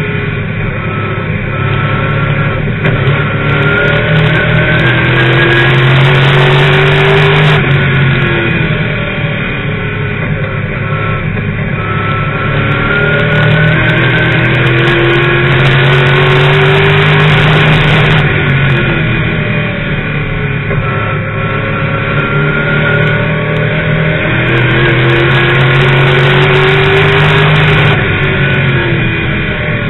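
Late model stock car's V8 engine at racing speed, heard from inside the cockpit: it climbs in pitch on each straightaway and drops off as the driver lifts for the turns, three times, about every ten seconds.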